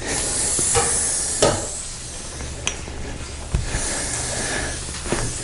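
Air hissing out of a PCP hand pump's open release valve, the pump being bled after filling a high-pressure air bottle; the hiss eases after the first second or two. A few sharp clicks and knocks from handling the pump come through it.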